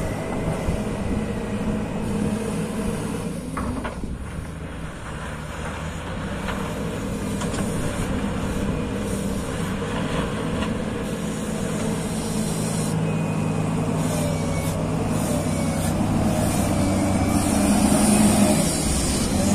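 Hyundai HL757-7A wheel loader's diesel engine running steadily as the machine works down the slope pushing soil with its bucket, growing louder near the end as it comes close. A faint wavering whine rides over the engine.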